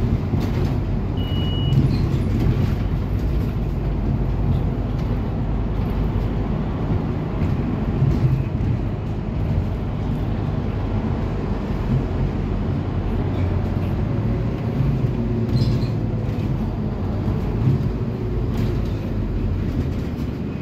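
Scania city bus under way, heard from inside the passenger cabin: steady engine and road rumble, the engine pitch slowly shifting with speed. A short high beep sounds about a second and a half in.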